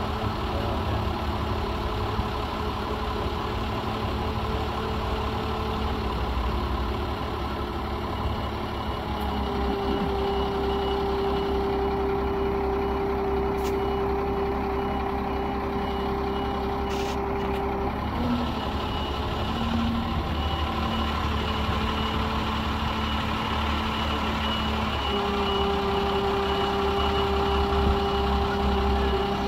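Heavy forklift's engine running under load as it carries a small steam locomotive on its forks. The engine note steps up about a third of the way in, drops back past the middle and rises again near the end. A faint reversing alarm beeps steadily.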